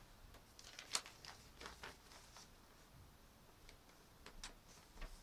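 Near silence in a small room: low hiss with a few faint, scattered clicks and rustles, the sharpest about a second in.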